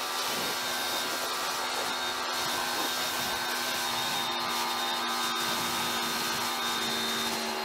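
Teande 2300 electric pressure washer running steadily, its motor-and-pump hum under the hiss of the water spray as it rinses foam soap off a car. The unit falls short of its rated pressure and flow, leaving too little rinsing power to clear thick foam easily.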